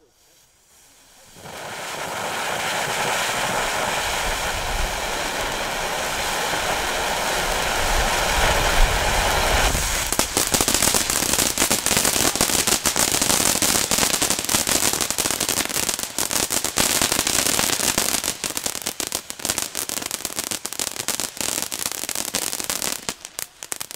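Firework fountain starts spraying about a second and a half in with a steady hiss. About ten seconds in the hiss turns into dense, rapid crackling, which dies away near the end.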